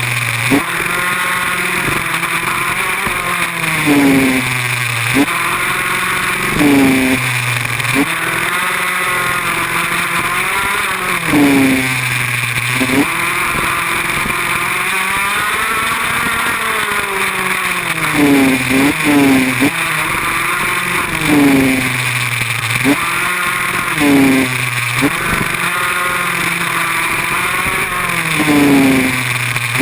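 Small motorbike engine revving up and falling back again and again as it is throttled through the corners. The pitch rises and drops every second or two over a steady hiss.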